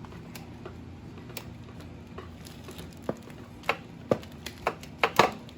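Irregular sharp clicks and taps of hand tools and metal parts being handled at a motorcycle engine, sparse at first, then a cluster of louder knocks in the last couple of seconds.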